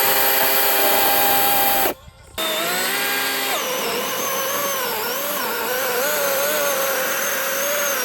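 Gas chainsaw running at high revs, cutting off abruptly about two seconds in. It comes back at a steady high pitch, then from about three and a half seconds its pitch drops and wavers as the chain bogs under load cutting a tree stump.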